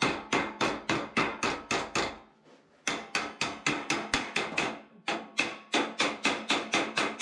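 Rapid hammer blows, about four a second, in three quick runs with short pauses between them.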